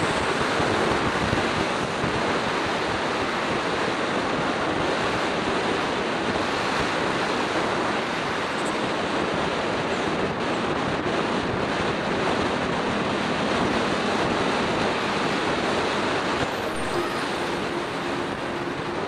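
Steady rushing wind noise on the microphone of a camera moving along a road, mixed with road and traffic noise. It eases a little near the end.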